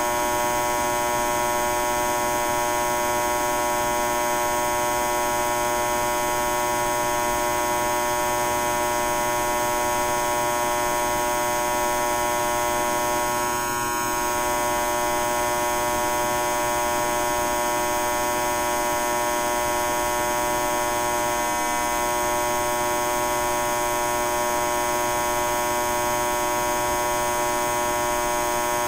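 High-voltage power line humming: a steady, unchanging electrical buzz rich in overtones, with a brief slight dip in level about halfway through.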